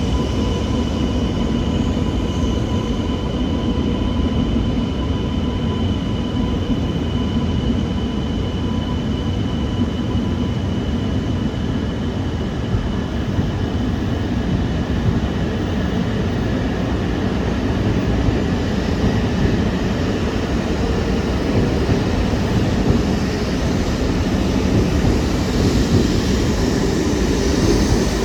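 Joetsu Shinkansen E2 series train moving off after departure: a steady running rumble of the train on the rails, with faint steady high tones above it.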